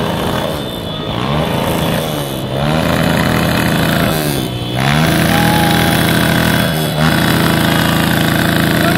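Small motorcycle engine revving hard, its pitch falling and climbing again every second or two, then held at high revs for the last few seconds with a brief dip in between.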